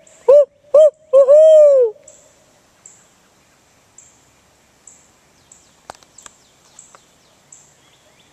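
Barred owl locator call: a few short hoots, then a long, drawn-out hoot that falls in pitch and ends about two seconds in. Then quiet with a few faint clicks. It is the hunters' trick for getting wild turkeys to call back and give away where they are.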